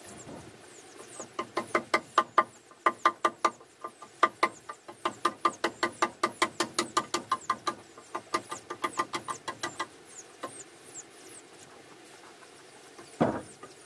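Hammer striking a nail into a wooden floor board: a fast run of ringing blows, about four a second, that stops after about ten seconds, followed by a single wooden knock near the end.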